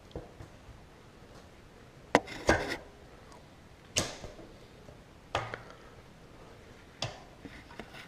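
About five sharp clicks and knocks of bicycle parts being handled during a rear-wheel installation, the loudest a close pair about two seconds in.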